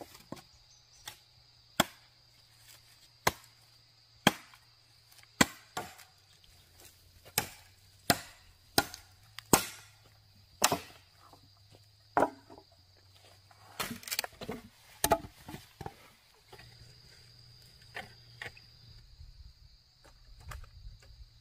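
Firewood being chopped: sharp, separate blade strikes into wood at an irregular pace of roughly one a second. A quick flurry of blows comes around the middle, and lighter, quieter taps follow near the end.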